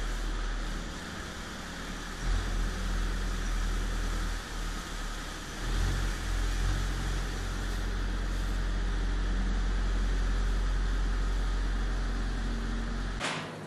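Farm vehicle's engine running with a steady low drone, together with a broad rushing hiss from its bedding machine blowing straw over the pens. The sound cuts off abruptly near the end.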